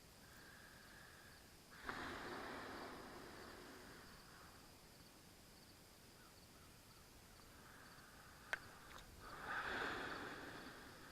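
Faint outdoor ambience: a steady thin high hum throughout, two rushes of noise a couple of seconds each, about two seconds in and again near the end, and a single sharp click shortly before the second rush.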